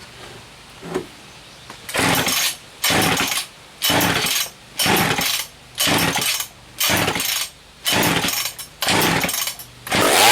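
Poulan 306A two-stroke chainsaw, run on a little gas squirted into the carburetor, firing in about eight short, loud bursts roughly a second apart. Near the end it catches and runs for a moment.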